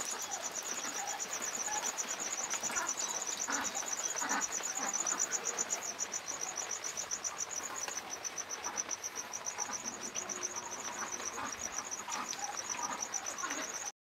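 Cricket chirping, a steady, high, rapidly pulsing trill, with faint rustles and clicks from the pen.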